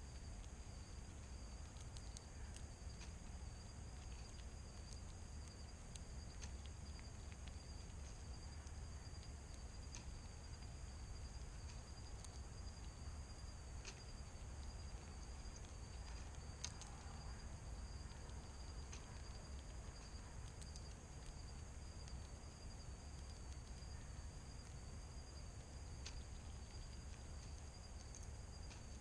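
Steady, high-pitched chorus of evening insects running throughout, with scattered faint clicks over a low background rumble.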